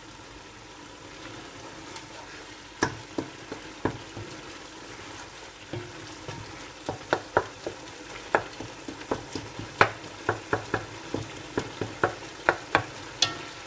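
Wooden spoon stirring chicken keema in a coated metal pot, knocking and scraping against the pot over a steady hiss of the mince cooking. The knocks come only now and then at first, then about two or three a second from about seven seconds in, as the keema, simmered for half an hour, is stirred to start frying it down.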